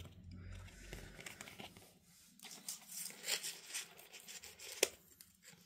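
Faint rustling and sliding of Disney Lorcana trading cards being handled and laid down, with one sharp tap a little before the end.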